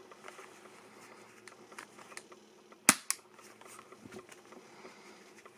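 Tokyo Marui spring-operated CZ75 airsoft pistol being handled, with faint plastic clicks, then one sharp snap of its spring mechanism about three seconds in.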